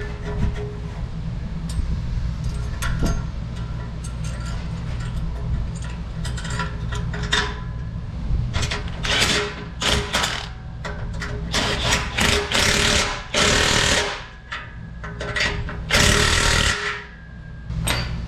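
Exhaust-fitting work: scattered metal clicks, then several loud bursts of power-tool noise about a second long in the second half, over a steady low hum.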